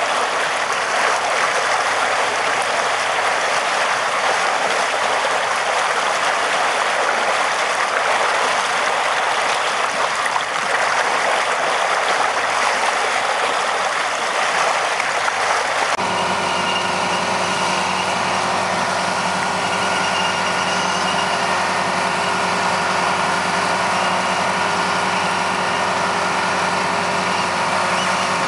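Slurry gushing steadily from a dredge discharge pipe. About halfway through it gives way abruptly to a small pontoon dredger's engine running steadily.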